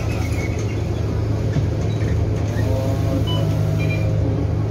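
City bus idling at a stop, a steady low engine hum heard from inside the cabin.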